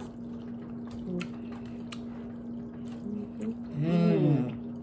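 Eating noodles with chopsticks: faint clicks and small mouth and chewing sounds over a steady low hum, with a brief voiced sound about four seconds in.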